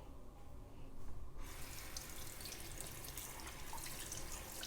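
Tap water running into a sink, coming on about a second and a half in and then running steadily.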